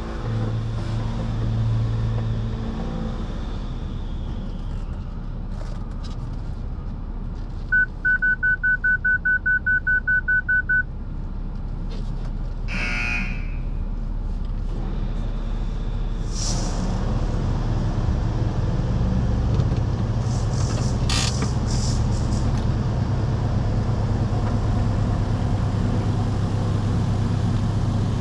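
Car-wash tunnel heard from inside the car: water spray and cloth brushes washing over the car, over a steady low machinery hum. A quick run of high electronic beeps, about four a second, comes about a third of the way through, and a few rushes of spray hiss follow.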